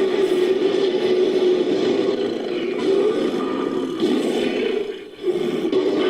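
Designed monster roar, a deep, rough, drawn-out growling vocalization. It breaks off briefly about five seconds in, and a second roar starts at once.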